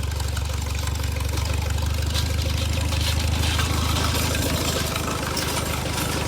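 Tractor engine running steadily in first gear while pulling a harrow, with a scraping, gritty noise building from about two seconds in as the harrow drags through the gravel.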